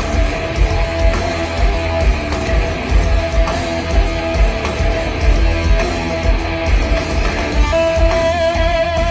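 Background music: guitar-driven rock with a steady pulsing bass beat and strummed electric guitar.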